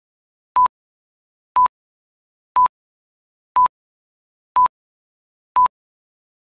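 Film-leader countdown beeps: a short, steady high-pitched beep once a second, six times, each starting and stopping with a slight click, silent between them.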